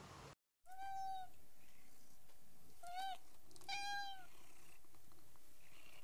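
Domestic cat meowing three times, about one, three and four seconds in; the middle meow is short and the other two are longer.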